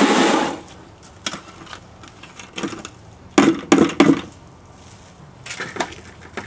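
Knocks and clatters of plastic buckets and a drill-mounted mixing paddle being handled: a short loud burst at the start, scattered knocks, and a cluster of sharp knocks about three and a half to four seconds in. The drill motor is not running.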